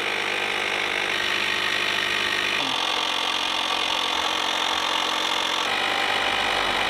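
Small portable electric air pump running steadily as it inflates an inflatable boat. Its tone shifts abruptly twice, about two and a half seconds in and again near six seconds.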